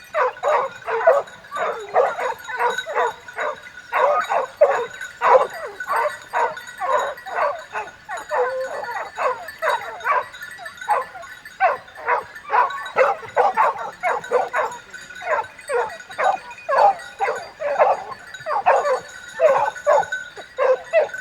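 A pack of hunting dogs baying and yelping nonstop while chasing a wild boar, many overlapping barks each second.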